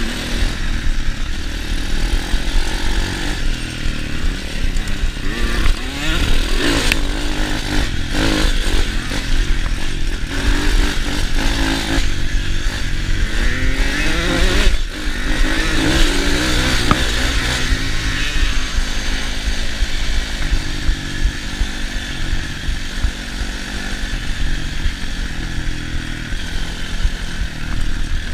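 Apollo 150 pit bike's single-cylinder engine running hard on board while riding, its pitch rising and falling as the throttle is worked, most plainly about halfway through, with wind noise and rattling from the rough trail.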